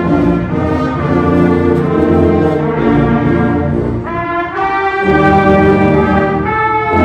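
Middle school band playing a holiday piece, brass carrying held chords that change every second or two.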